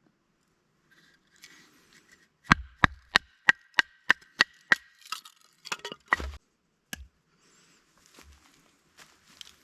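Wood being chopped with a hand tool: a quick, even run of about nine sharp strikes, about three a second, followed by a few scattered knocks.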